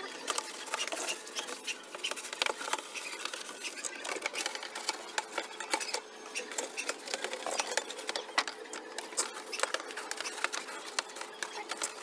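Stiff-bristled hand scrub brush scrubbing a wet plastic pet carrier: a fast, uneven run of scratchy strokes with small clicks and knocks.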